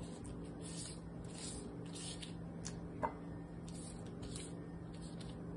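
Soft rustling of thin phyllo pastry sheets and plastic wrap as hands smooth and lay them out, over a low steady hum, with one small click about three seconds in.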